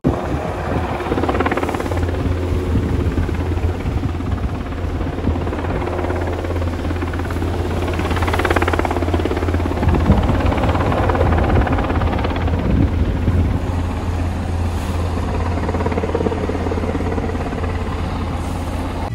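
Irish Coast Guard Sikorsky S-92 search-and-rescue helicopter flying over the sea, its rotors giving a steady, rhythmic low thudding along with the hum of its turbine engines. It is loudest around the middle, as it passes nearest.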